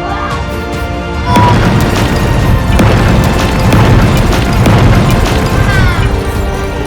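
Background music, overlaid from about a second and a half in with a loud stretch of booming, crashing battle sound effects that fades back to the music near the end.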